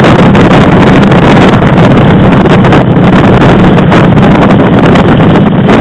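A motorcycle running at road speed, heard through loud, steady wind noise buffeting the microphone of a camera mounted on the moving bike.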